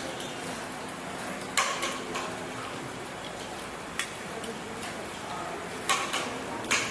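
Dishes and serving utensils clattering in a handful of sharp clinks, the loudest about a second and a half in and two more near the end, over a steady background murmur.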